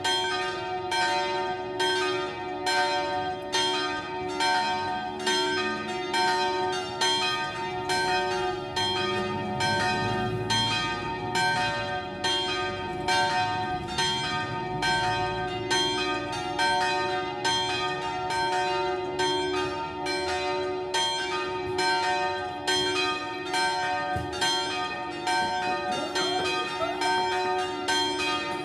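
Three small church bells (the 4th, 5th and 6th of a six-bell tower) swung in full circle in the Italian 'distesa' style. Their strikes follow one another several times a second over a continuous ring. This peal is the first call to a weekday evening mass.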